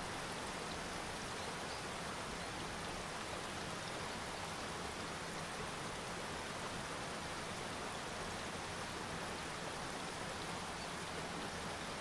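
Rocky waterfall pouring over stones: a steady, unbroken rush of falling and splashing water.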